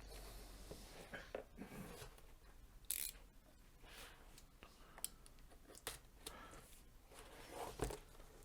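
Faint, scattered clicks and scrapes of a knife and a sturdy cardboard box being handled, with a short scratchy sound about three seconds in.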